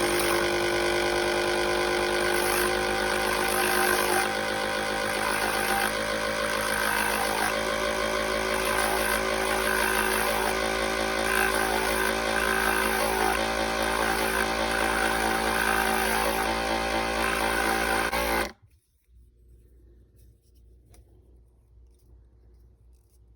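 Electric motor of an RX honing machine running steadily while the inside of a wing-tipped dental elevator is honed on its ceramic disc; the motor whine cuts off suddenly about 18 seconds in.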